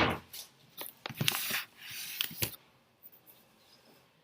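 Handling noise from a hard plastic baby bath seat: a few clicks and knocks with short rustles over the first two and a half seconds, then quiet.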